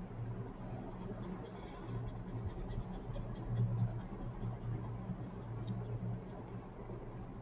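Green colored pencil scratching back and forth on paper in quick, even strokes, with a low steady hum underneath.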